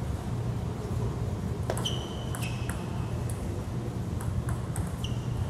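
Table tennis ball clicking off paddles and the table in a short rally: a string of sharp ticks starting almost two seconds in, some with a brief high ping, ending about five seconds in.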